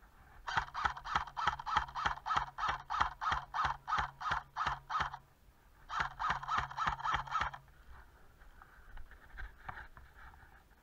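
Running footsteps on a dirt trail, about four strides a second. They pause about five seconds in, run again briefly, then give way to softer, slower steps.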